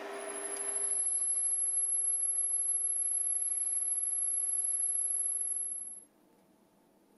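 Chinese mini lathe running while a drill held in the tailstock chuck bores into the spinning workpiece, with a steady low hum and a steady high-pitched whine over it. The sound cuts off suddenly about six seconds in.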